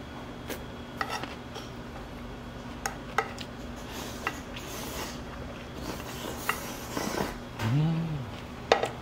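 Dishes and cutlery clinking and clattering, with scattered sharp knocks and a steady low hum underneath.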